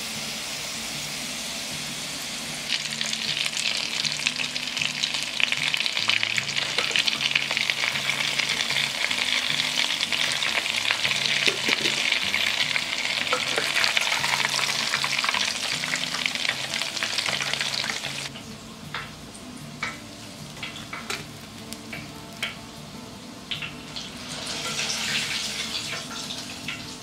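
Breaded potato croquettes deep-frying in hot oil: a dense, steady sizzle of bubbling oil that swells about three seconds in. About two-thirds of the way through it thins to scattered pops and crackles, then briefly swells again near the end.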